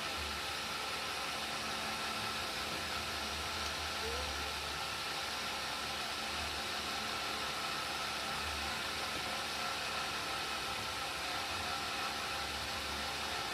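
Cotton candy machine running: a steady whirring hiss with a faint hum.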